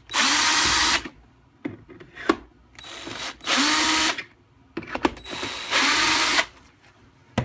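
Power drill/driver with a Phillips bit backing screws out of the printer's casing, in several short motor runs that each spin up quickly, with a few sharp clicks of the bit and screw between runs.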